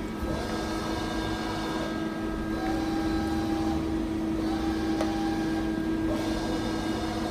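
Johnford TC-35 CNC lathe running: a steady hum with higher whining tones that start, stop and shift pitch about every two seconds, as motors and axes work through a cycle.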